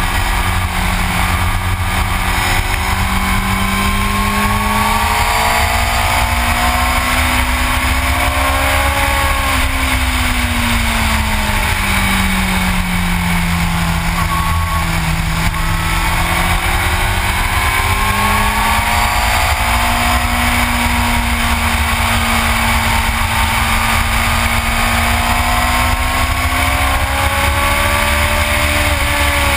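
Yamaha YZF-R6 sport bike's inline-four engine running at cruising revs, its pitch rising and falling slowly with the throttle through the curves, with no sharp gear changes. Under it is a constant heavy rumble of wind on the microphone.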